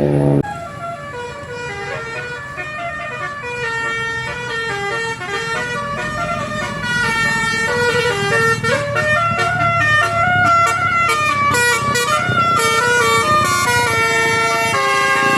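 Bus 'telolet' basuri horn playing a quick melody of stepped notes. A deep, loud tone cuts off about half a second in.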